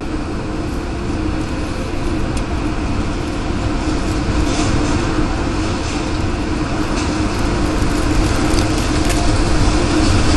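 Tornado roar: a dense, steady rush of wind that grows slowly louder, with a steady hum inside it and a few faint ticks.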